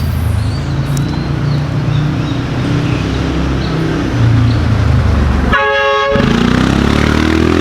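A motor vehicle's engine running close by with a low drone, a short horn blast about five and a half seconds in, then the engine pitch rising.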